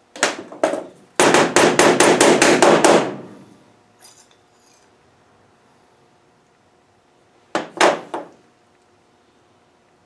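Clutch master cylinder being knocked hard against a workbench to drive out its piston and spring: a few sharp knocks, then a fast run of about a dozen, roughly six a second for two seconds, and two more near the end.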